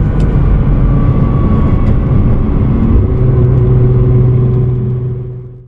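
Nissan R35 GT-R's twin-turbo V6 running under way, a rough rumble that settles into a steady drone about three seconds in, then fades out near the end.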